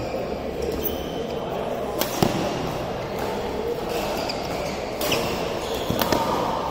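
Badminton rackets striking a shuttlecock in a rally: several sharp cracks, the loudest about two seconds in, with short high squeaks of court shoes and voices around the hall.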